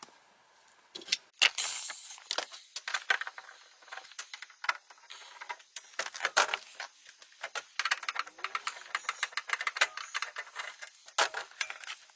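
Irregular clinks, clicks and rattles of small metal parts and tools being handled, starting about a second in and going on in quick, uneven bursts.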